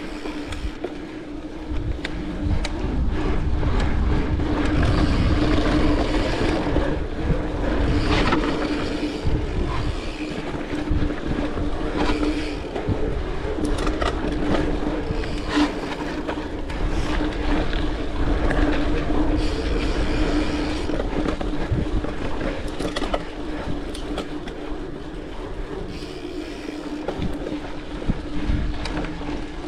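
A mountain bike rolling along a dirt trail: tyre noise and a low rumble, with a steady hum and frequent short knocks and rattles as the bike goes over bumps.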